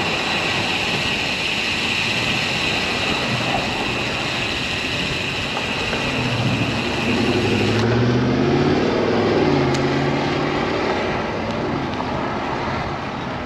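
Wind and road noise while riding a bicycle. A motor vehicle passes from about six seconds in, its engine pitch shifting up and down, loudest around nine seconds.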